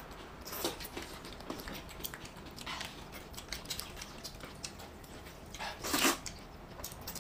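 People slurping and eating rice noodles in soup from paper cups: a few short slurps, the loudest about six seconds in.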